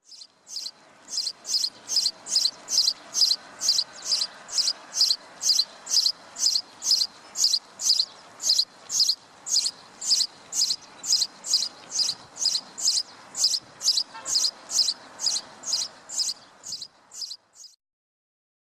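A songbird repeating one short, high note over and over, about two and a half times a second, evenly paced, fading and stopping near the end.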